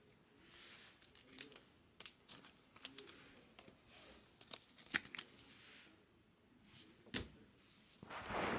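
Baseball trading cards handled and laid onto stacks on a table: scattered sharp clicks and snaps of card on card with soft rustling, and a longer, louder rustle near the end.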